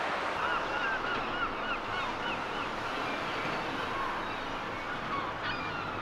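Gulls calling: a quick run of repeated yelping notes, about three a second, for the first couple of seconds, then a few scattered calls, over a steady hiss of surf.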